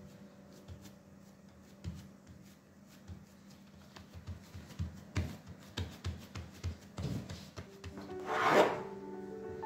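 Hands pressing and patting a ball of risen yeast dough flat on a wooden board: a series of soft, dull thumps. Near the end a metal bench scraper cuts down through the dough and scrapes along the board with a loud swish, the loudest sound here.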